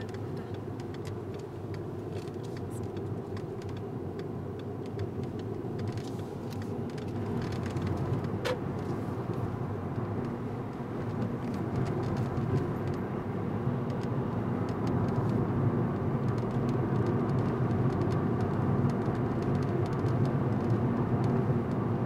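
Car running along a road, heard from inside the cabin: a steady low rumble of engine and tyre noise that grows gradually louder through the second half.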